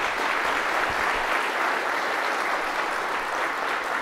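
Audience applauding steadily in a lecture hall at the end of a talk.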